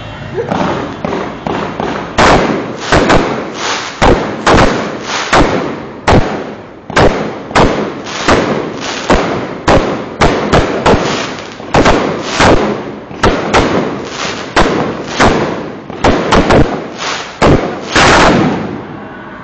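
Fireworks going off in a rapid volley of loud bangs, one to two a second, each with a short echoing tail, closing with a longer, louder burst near the end.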